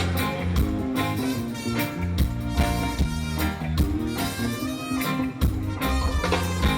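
Live band playing an instrumental passage with bass, drums and melodic instruments, with no singing.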